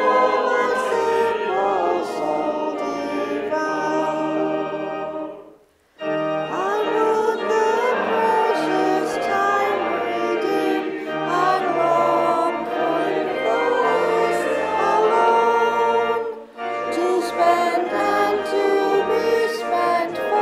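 Congregation singing a hymn with organ accompaniment. The first verse ends about five seconds in, there is a moment's silence, and then the second verse begins.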